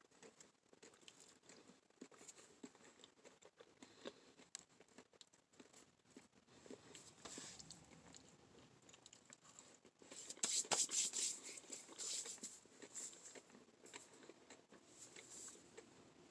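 Faint close-up chewing of a sugar-coated cotton candy Peeps marshmallow, soft mouth clicks at first. About ten seconds in comes a louder spell of quick crackly crunching that lasts a few seconds.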